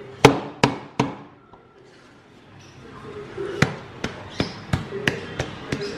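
Bamboo puttu tube being knocked to loosen the steamed puttu and shake it out onto a steel plate: three sharp knocks in the first second, then after a pause a run of knocks at about three a second.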